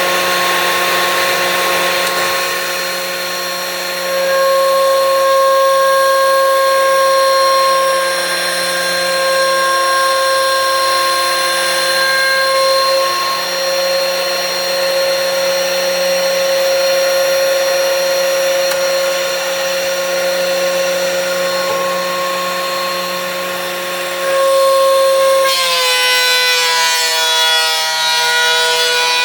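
DeWalt benchtop thickness planer running with a steady high whine and cutting noise as the wooden stair tread feeds through, with swells in loudness. About 25 seconds in, the whine drops in pitch and gets louder.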